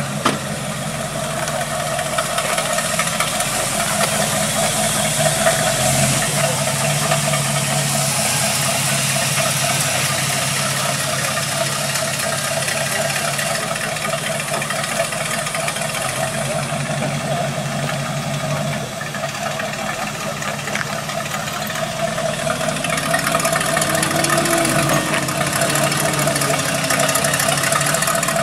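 1957 Chevrolet Bel Air's engine running at a steady idle as the car rolls slowly past.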